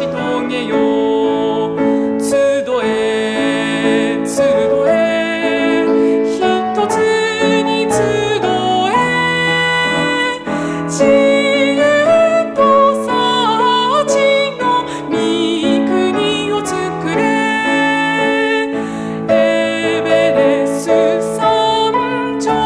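A hymn sung in Japanese over piano accompaniment, the voice holding long notes with vibrato.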